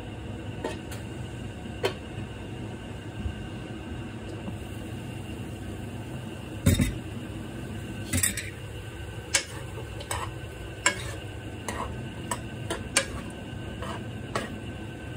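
A pan lid is lifted off with one heavy knock about midway. Then a utensil clinks and scrapes repeatedly against a red pan as the bamboo shoots and beef inside are stirred, over a steady low hiss from the pan and burner.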